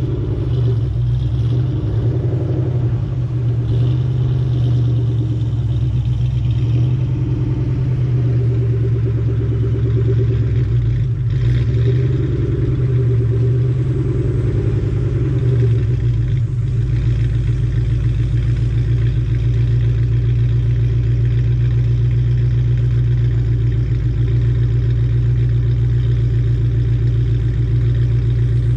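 Ford Mustang engine running through a Borla ATAK cat-back exhaust, a low steady drone that shifts slightly a few times.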